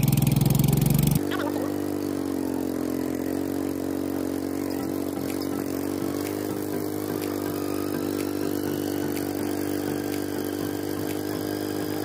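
Small motorcycle engine running at a steady speed while being ridden. Its note changes abruptly about a second in, then holds steady.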